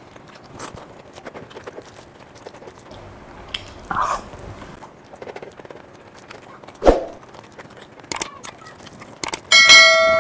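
Close-miked eating with the hand: soft chewing and mouth clicks, with a short thump about seven seconds in. Near the end come a few sharp clicks, then a bright bell chime from a subscribe-button animation, the loudest sound here.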